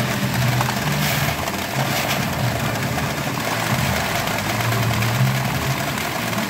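Pachinko parlor din: a loud, steady wash of many machines' electronic sounds blended together.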